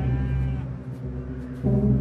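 Tense background music: a low sustained drone, with a new, louder chord coming in about one and a half seconds in.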